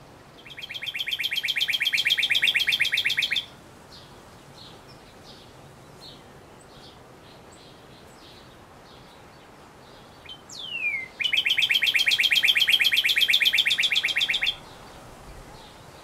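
Male northern cardinal singing two songs, each a rapid trill of repeated notes; the second opens with a steep down-slurred whistle. Faint high notes sound between the songs.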